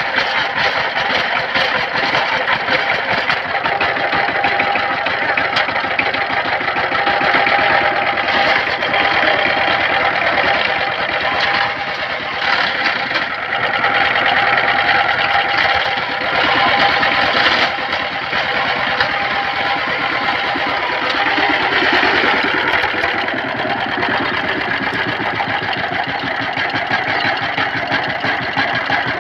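Single-cylinder diesel engine of a walking power tiller running steadily, with the fast, even knock of its firing strokes.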